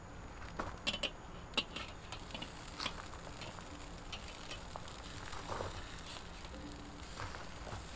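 Metal spatula clicking and scraping against the steel grate of a charcoal kettle grill as hamburger patties are flipped, in scattered short strokes.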